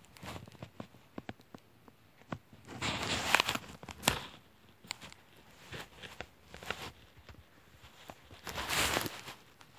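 Close rubbing and handling noise: scattered small clicks with two longer rustling swells, one about three seconds in and one near the end.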